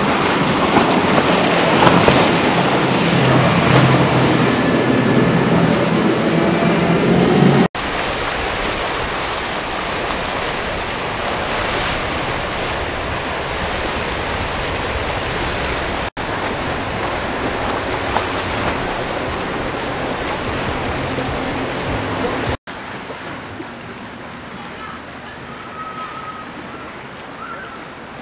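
Formula powerboats running at speed through choppy water: engine drone with hissing spray and waves, and wind on the microphone. It comes in four stretches split by abrupt cuts. The first is loudest, with a steady engine drone, and the last is quietest.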